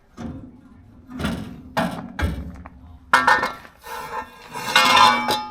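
Irregular metal clanks and knocks of heavy car parts and tools being handled and struck, several hits ringing briefly.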